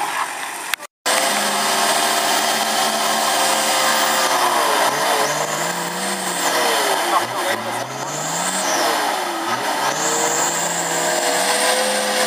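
A 4x4's engine running under load, its revs rising and falling several times, with a faint high whine at times. The sound cuts out briefly about a second in.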